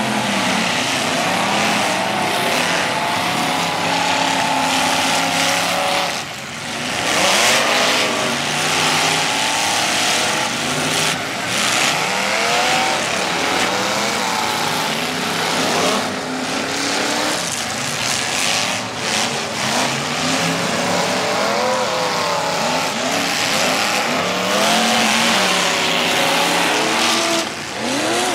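Several figure-eight race cars' engines revving up and down on a dirt track, their pitches overlapping and rising and falling as the cars accelerate out of the turns and slow again.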